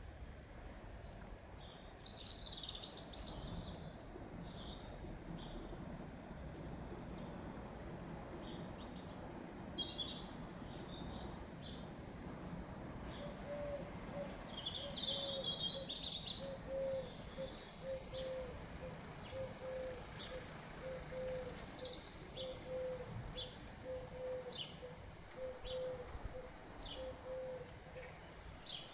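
Small birds chirping and singing in short high calls and trills, over a steady outdoor background noise. From about halfway through, a lower note repeats roughly every second.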